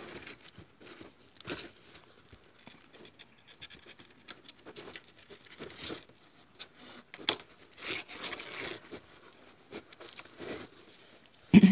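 Thread being drawn through stitch holes in leather while the leather shoe parts are handled. It comes as irregular short scratchy rasps and soft rustles with a few light clicks.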